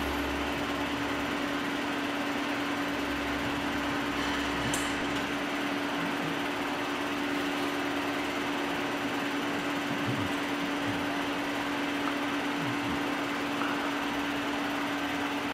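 Film projector running, its motor and cooling fan making a steady whir with a constant hum.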